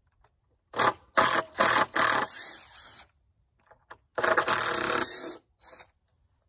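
Cordless drill-driver backing a bolt out of a wooden swing-set leg, run in short bursts. Several quick bursts in the first two seconds are followed by a quieter stretch, then another burst of about a second from about four seconds in.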